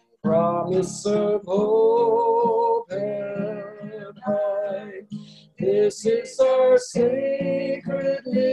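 A hymn sung to guitar accompaniment, with sustained sung notes phrased line by line.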